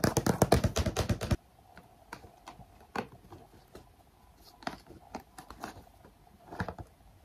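Fingernails tapping rapidly on a white cardboard box, about ten taps a second, stopping about a second and a half in. Then scattered lighter taps as the box is handled.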